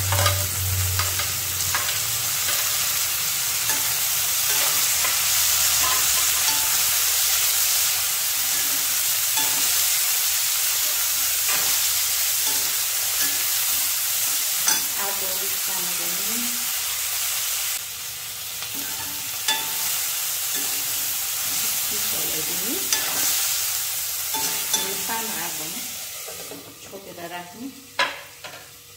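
Fiddlehead ferns sizzling in hot oil in an aluminium wok, with the clicks and scrapes of a spoon stirring them against the pan. Near the end the sizzle fades and a lid clanks onto the pan.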